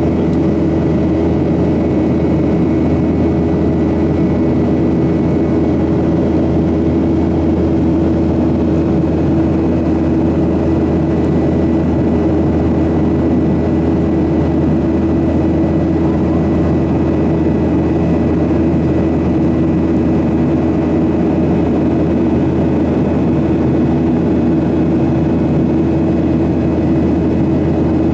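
Steady cabin drone of a Boeing 737-800 in flight, heard inside the cabin by the wing: the rumble of its CFM56-7B turbofans and the airflow, with a steady hum on top.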